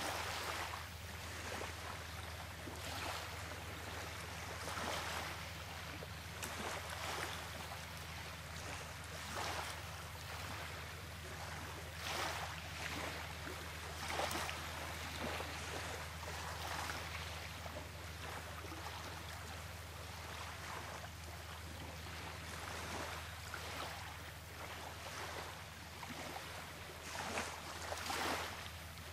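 Shoreline ambience: soft washes of small waves every second or two over a steady low drone.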